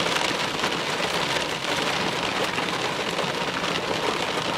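Steady rain falling on a vehicle during a severe thunderstorm.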